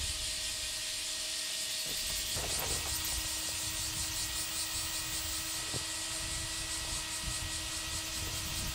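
Steady high-pitched outdoor hiss with a faint regular pulsing in it, over faint steady tones lower down.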